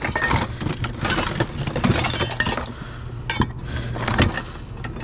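Hard objects clinking and clattering together as scrap is rummaged through, dense for the first two or three seconds, then a few separate knocks.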